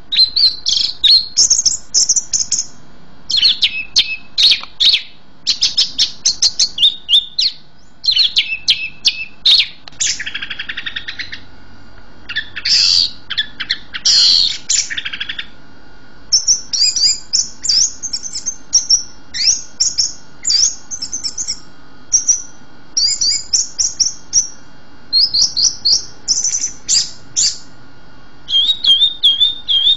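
Songbird singing a long, continuous run of quick, varied phrases: rapid chirps, trills and whistled notes, with a harsher buzzy phrase about ten seconds in.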